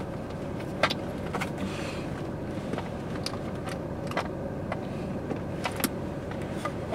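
Steady blowing hum of a car's heater fan and idling engine heard inside the cabin, with scattered light clicks and rustles from rummaging around the seats for a notepad, and one sharper click near the end.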